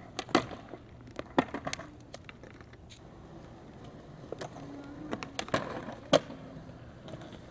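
Skateboard wheels rolling on concrete, broken by sharp wooden clacks of the board: tail pops, board slaps and landings as tricks are tried on a low skatepark bench. The loudest clacks come just after the start, about a second and a half in, and about six seconds in.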